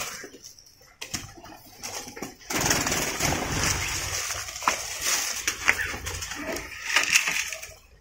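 Aviary birds calling, among them doves cooing, over a rustling noise with scattered small clicks that starts about two and a half seconds in.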